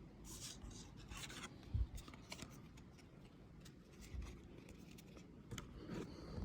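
Baseball trading cards being handled and flipped through: faint rustles and light scrapes of card stock sliding against card stock, with a soft low thump about two seconds in.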